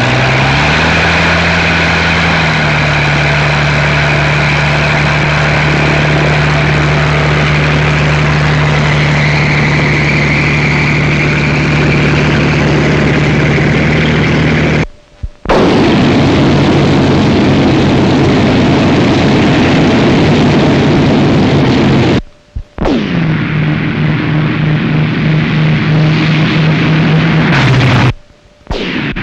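Spitfire fighters' Rolls-Royce Merlin V12 piston engines running loud and steady at one pitch. The sound cuts out abruptly three times, each time only for a moment.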